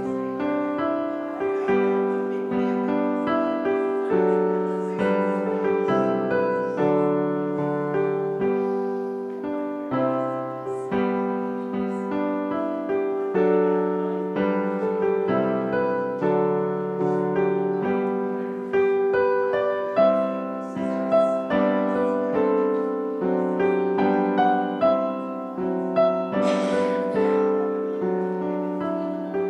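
Piano playing a slow piece, chords struck about once a second and left to ring out.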